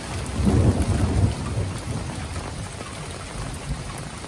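Heavy rain pouring down in a thunderstorm, with a low rumble of thunder in the first second and a half.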